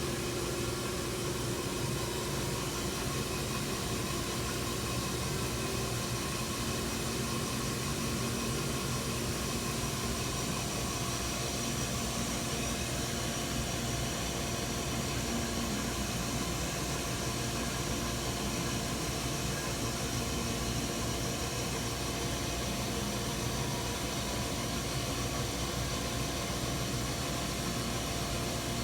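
Milling machine running steadily: a constant hum with a few steady whine tones over an even hiss.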